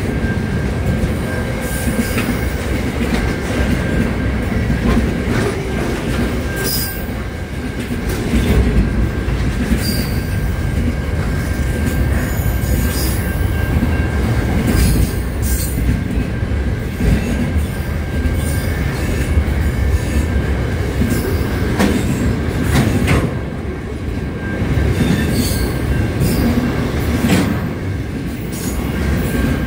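Container freight train rolling past close by: a steady rumble of steel wheels on the rails, with irregular clacks and knocks as the wagons pass over the rail joints and a thin steady high-pitched squeal from the wheels.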